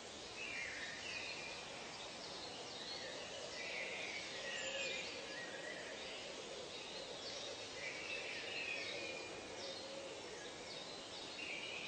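Forest ambience: birds calling again and again in short bursts over a steady background hiss.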